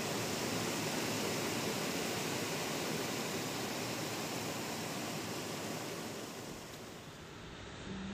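River water rushing steadily over a low rocky cascade, a constant roar of white water that drops away briefly near the end.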